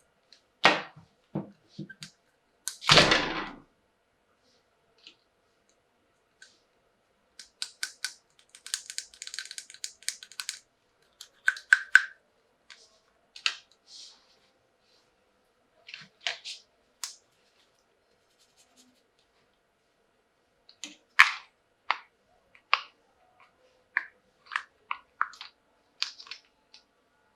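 Plastic toy doctor-kit pieces and packaging handled at close range: irregular clicks, taps and brief rustles, with a louder knock about three seconds in.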